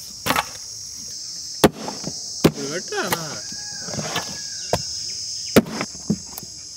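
Big tuna being chopped and cut up, about six sharp knocks at irregular intervals, over a steady high chirring of insects.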